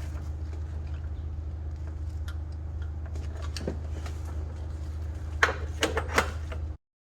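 Light metal clinks and taps of hand tools and bolts on the engine while the water pump is being unbolted, with a few sharper clinks about five and a half to six seconds in, over a steady low hum. The sound cuts off abruptly near the end.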